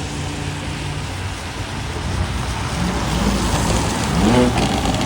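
A car engine running steadily, then revving up with a rising pitch about three seconds in, loudest just before the end as the car accelerates away.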